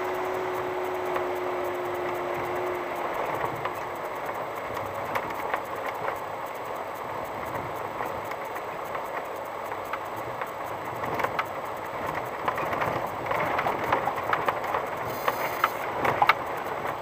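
VW T5 California van driving slowly over a rough gravel track, heard from inside the cab: a steady rumble of tyres on loose stones and dirt, with scattered knocks and rattles from stones and the bodywork that grow thicker near the end. A steady hum dies away about three seconds in.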